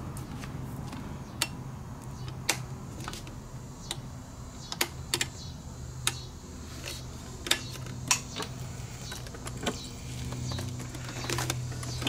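Irregular light clicks and taps, about a dozen spread across the stretch at uneven gaps, over a low steady hum.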